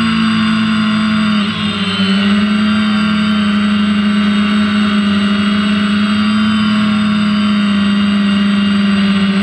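Quadcopter drone's electric motors and propellers heard up close from the drone's own camera, a loud steady whine. The pitch dips and shifts about one and a half seconds in with a change of throttle, then holds steady while it hovers.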